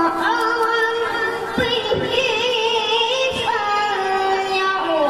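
A boy reciting the Qur'an in melodic tilawah style through a microphone and PA system. He holds long, ornamented notes that waver and glide between pitches.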